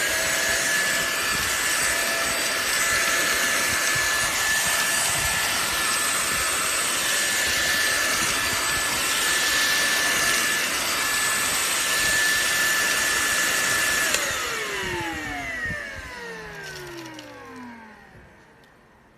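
Deerma DX700 stick vacuum cleaner running with a steady high whine, then switched off about 14 seconds in, its motor pitch falling as it spins down over several seconds.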